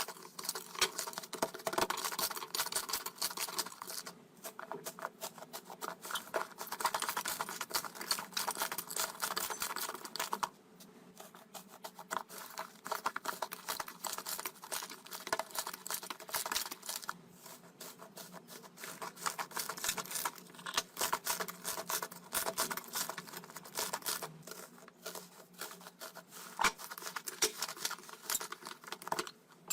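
Slime being poked and squished by hand, giving dense, irregular sticky clicks and crackling pops, which thin out for several seconds in the middle.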